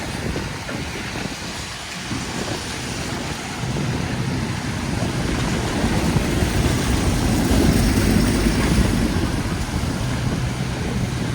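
City street traffic: a low rumble with hiss that swells as a vehicle passes, loudest about seven to nine seconds in, then eases.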